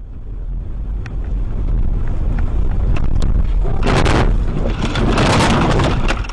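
A car's steady low rumble, with louder rushing noise swelling about four seconds in and again a second later, and scattered sharp clicks.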